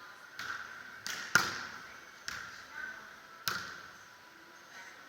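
A beach volleyball rally: about six sharp slaps of hands and arms striking the ball within three and a half seconds, the loudest about a second and a half in.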